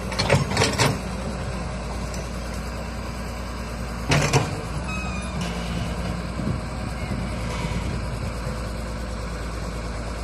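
Hyundai excavator's diesel engine running steadily under load. Loud knocks come in a quick cluster in the first second and again about four seconds in.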